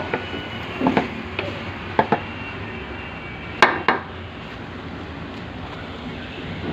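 Metal kitchen utensils clinking and knocking against cookware: a few separate strikes, the loudest pair about three and a half seconds in, over a steady hiss.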